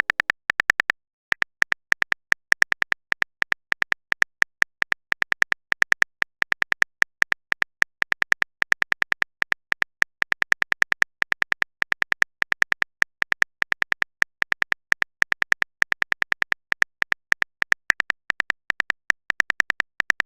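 Rapid, evenly spaced phone-keyboard typing clicks from a texting-story animation, about five or six a second, with a short pause about a second in.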